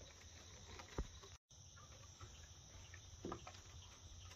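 Faint, steady chirping of night insects, with a brief dropout about a second and a half in and a couple of soft taps.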